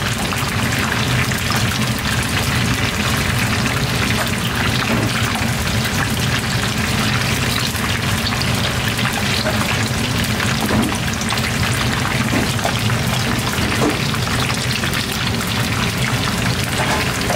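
Corn fritters deep-frying in a pan of hot oil: a steady, dense sizzle and crackle.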